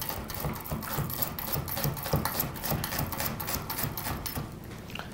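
Chef's knife finely chopping an onion on a wooden cutting board: rapid, even taps of the blade striking the board, dying away shortly before the end.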